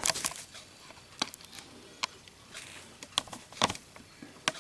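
Scattered light clicks and taps of a chrome Zippo lighter being handled and set down among other Zippo lighters, a handful of separate clicks a second or so apart.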